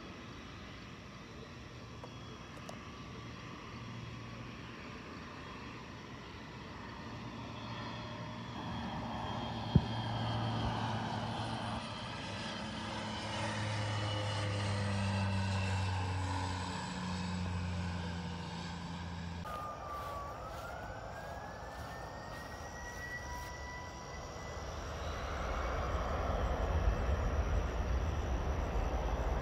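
Aircraft on approach passing low overhead with its engines running; the rumble swells and its pitch falls as it goes by. A single sharp click comes about ten seconds in. After an abrupt change about two-thirds through, a rising whine is heard and a low rumble builds toward the end.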